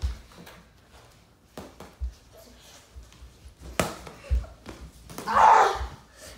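Scattered dull thuds of children moving and boxing on a floor and mattress, with a sharp slap about four seconds in. Near the end a child lets out a loud yell.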